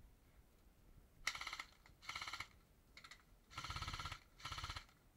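Airsoft gun firing five short full-auto bursts, each a rapid rattle of clicks; the last two bursts are the longest and fullest.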